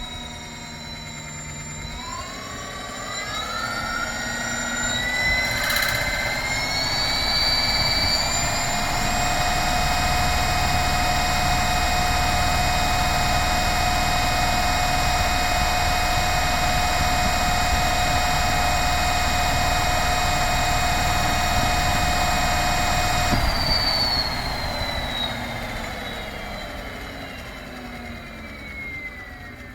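A 3000 W electric motorcycle's motor spinning up with a rising whine over several seconds. It holds a steady high whine for about fifteen seconds, then the power is cut and it winds down slowly, the pitch falling.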